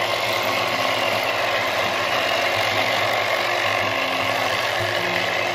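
Thumlers UV-10 vibratory rock tumbler running, a steady loud rattle of rocks and grit churning in its 3D-printed plastic bowl over a low motor hum.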